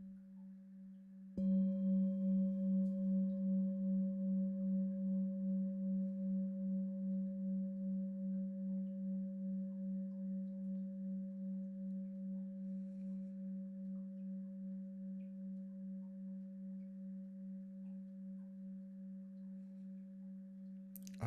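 A deep singing bowl is struck once, about a second and a half in, over the fading ring of an earlier strike. It rings on with a slow, even pulsing wobble and dies away gradually.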